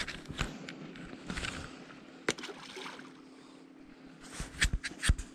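Wind and handling rustle on a chest-mounted camera's microphone, with scattered clicks and knocks (one about two seconds in, several near the end) over a faint steady hum.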